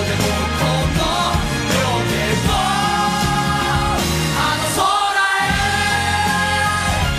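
Live pop band performance: singing over full band accompaniment. The bass drops out briefly about five seconds in.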